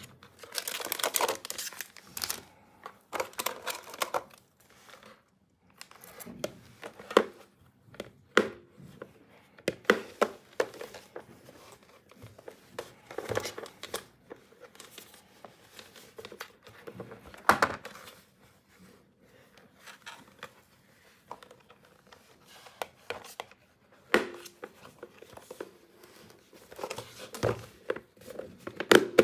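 Hands handling a hard plastic toy pet carrier, making irregular clicks and knocks as its parts and clear dome cover are fitted. Crinkling of plastic packaging is mixed in.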